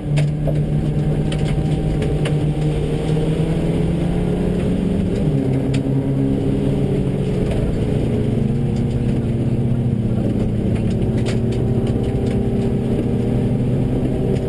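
Subaru rally car's engine running hard at stage pace on a gravel road, heard from inside the car. Two passes of the same stage are mixed, one per stereo channel. The engine note shifts as it goes, dropping about five seconds in, over road noise and scattered sharp ticks.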